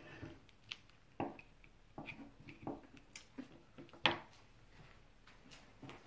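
Faint scrapes and light taps of a pottery loop tool working the soft oil and cold wax paint, scraping back to earlier layers. A sharper knock comes about four seconds in.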